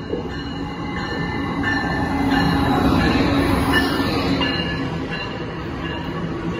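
Amtrak train behind a Siemens ACS-64 electric locomotive passing close along the platform. A rumble of wheels and running gear builds to its loudest about three seconds in as the locomotive goes by, with thin high tones over it, then eases a little as the stainless-steel cars follow.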